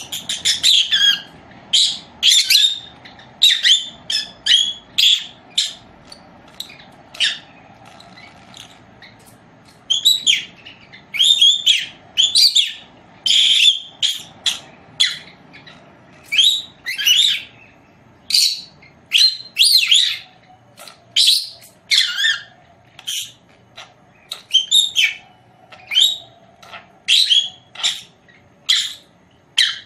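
A caged lovebird giving short, shrill chirping calls over and over, at an irregular pace, often two or three in quick succession.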